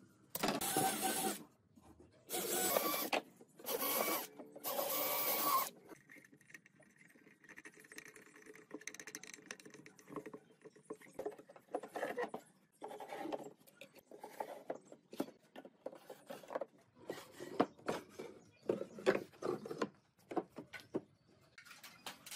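Four long scraping strokes of about a second each, worked along a wooden strip. They are followed by many light wooden knocks, clicks and short slides as pine drawers are fitted into and slid in and out of the cabinet frame.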